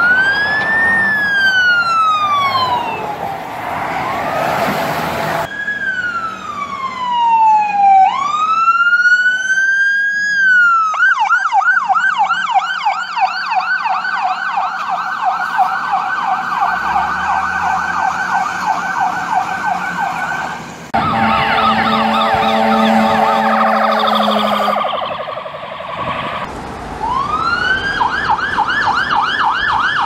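Fire-rescue vehicle sirens in a run of short clips. First a wail falling in pitch, then a wail that dips and climbs again, then a fast yelp for about ten seconds. Next several sirens overlap with a steady low air-horn blast, and near the end a wail winds up into a yelp.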